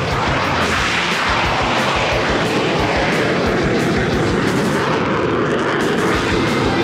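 Military jet engine noise, loud and steady, with a crackling rumble.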